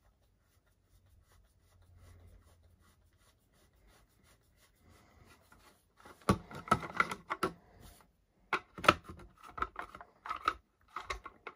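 Screwdriver scraping and clicking as small screws are worked out of a plastic RC foam-wheel hub. It is faint at first, then from about six seconds in comes a run of louder, irregular scrapes, clicks and knocks.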